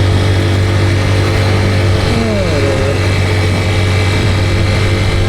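Motorcycle engine running at a steady speed while riding, a constant low hum with road and wind noise.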